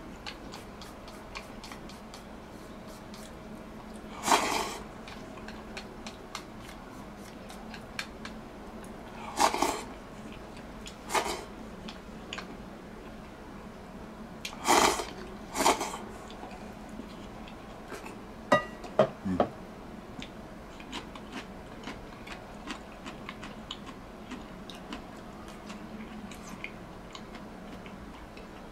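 A person eating a meal: soft chewing clicks throughout, broken by several short, loud slurps. A couple of ringing clinks of tableware come about eighteen to nineteen seconds in.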